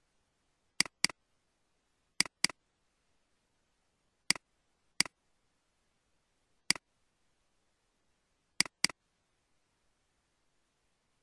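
Computer mouse button clicking while opening and leaving folders: three quick double-clicks and three single clicks, with near silence between them.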